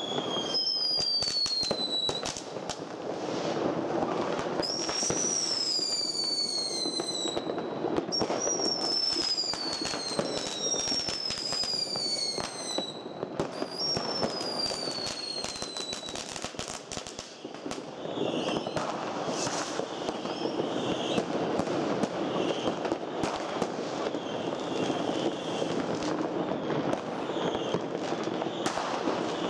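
New Year's Eve fireworks: about six whistling fireworks each give a falling whistle one to two seconds long, over dense crackling and banging of firecrackers. The whistles stop about halfway through, and the crackling and popping carry on.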